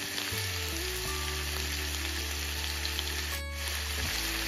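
Prawns and sliced vegetables sizzling in hot oil in a frying pan as more sliced bell peppers are tipped in. The sizzle drops out briefly about three and a half seconds in, and background music with held low notes plays under it.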